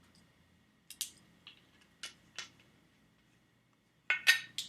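Several short, sharp clicks and taps, then a louder cluster of clicks near the end: small objects being handled.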